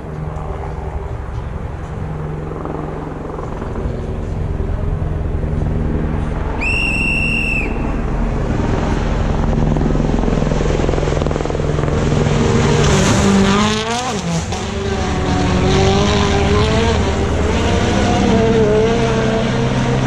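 Rally car engine at full throttle, growing louder as the car approaches, passing close about thirteen seconds in with a sharp drop in pitch, then pulling away as it changes up through the gears. A short, high, steady whistle sounds once about seven seconds in.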